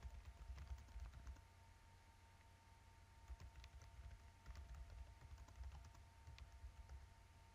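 Faint typing on a computer keyboard: irregular key clicks as words are typed, over a steady low hum.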